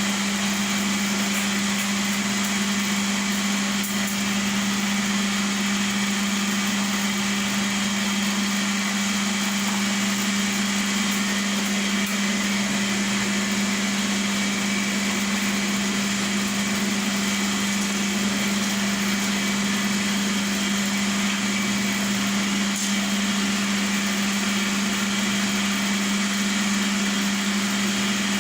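A satay-skewer making machine running steadily, its motor giving a constant low hum with a hiss of higher noise over it.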